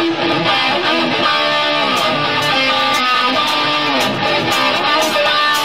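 Electric guitar playing an unaccompanied riff of changing notes through an amplifier, with no bass or drums under it.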